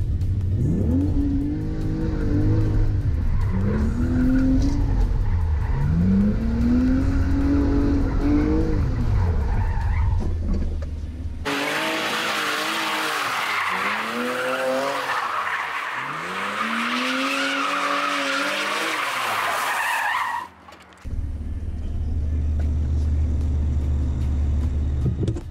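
BMW E30's swapped-in M54B30 straight-six heard from inside the cabin, revs rising and falling several times over a low cabin drone. About halfway through it is heard from outside, revs rising and falling under loud tyre squeal. The squeal stops abruptly and the low cabin drone returns near the end.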